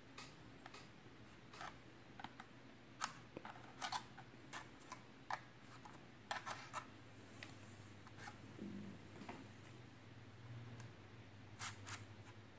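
Faint, irregular small plastic clicks and scrapes as a thin screwdriver pries the plastic handrail protectors off an HO-scale model locomotive. The sharpest click comes about 3 s in.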